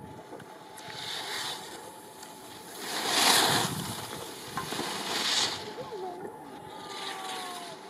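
Skis carving on packed snow, a swishing scrape with each slalom turn. It swells about every two seconds and is loudest about three seconds in, as the skier passes close by.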